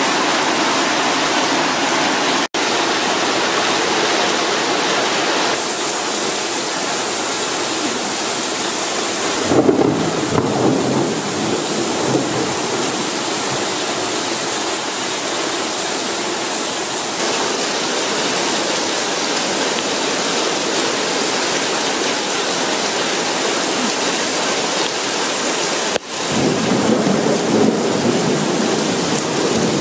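A steady downpour of rain. A low rumble of thunder comes in about ten seconds in, and another near the end.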